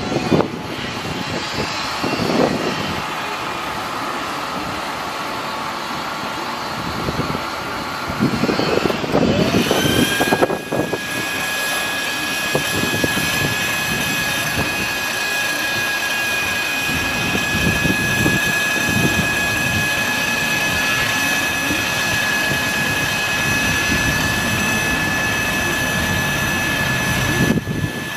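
Engine-driven machinery on a service truck running steadily, with irregular louder knocks and rumbles in the first few seconds. About ten seconds in, a steady high whine sets in and holds.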